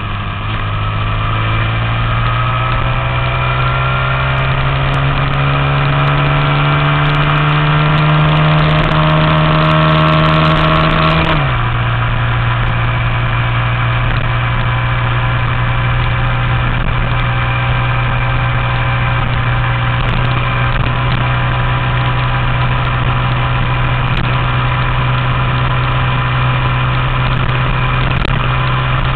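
Honda Z50/Monkey minibike's 88cc big-bore four-stroke single-cylinder engine, through an aftermarket exhaust, pulling hard with its pitch climbing steadily for about eleven seconds. It then drops suddenly as the rider shifts up a gear, and runs at steady cruising revs.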